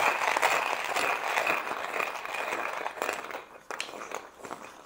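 Porlex hand coffee grinder being cranked, its ceramic burrs crunching and crackling through a few coffee beans. The crunching thins out about three seconds in as the beans are ground through.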